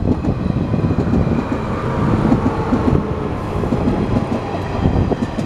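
JR 115 series electric multiple unit rolling past close by as it pulls into a station, a steady loud rumble of wheels and running gear with irregular clacks over the track.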